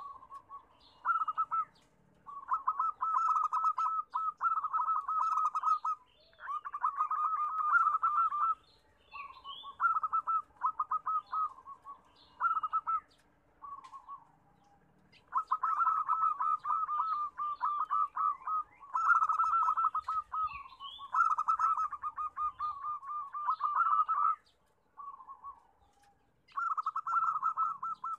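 Zebra dove cooing: rapid trilled coos in phrases of one to two seconds, repeated over and over with short gaps and two longer pauses. Faint high chirps of other small birds sound now and then.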